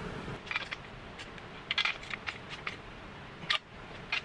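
Small metal parts clinking and clicking in quick, irregular taps, as hardware is handled during assembly, with the loudest clink about three and a half seconds in. A low steady hum stops just after the start.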